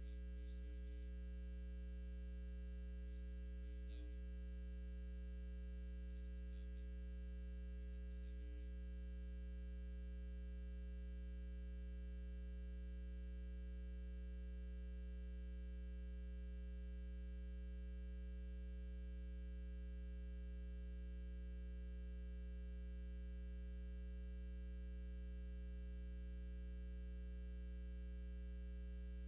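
Steady electrical mains hum with its overtones, unchanging throughout, with a few faint brief noises in the first nine seconds.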